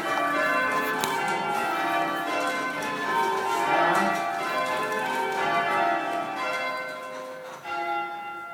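Church tower bells being rung full-circle in sequence (change ringing), each bell struck in turn so their tones overlap and hang on.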